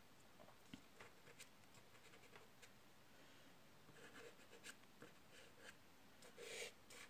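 Faint scratching and rubbing of a soft pastel stick on rough pastel paper, in short light strokes, the clearest about four seconds in and again near the end.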